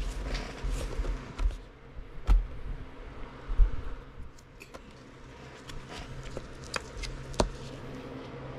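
Light clicks, taps and handling noise of a trading card being slid into a plastic card holder, over a faint steady hum. The clicks and thumps come mostly in the first half and thin out after.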